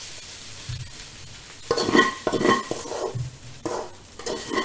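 A spatula scraping and knocking against a wok as fried noodles are pushed out onto a plate. It comes in several short bursts, the busiest about two seconds in and again near four seconds.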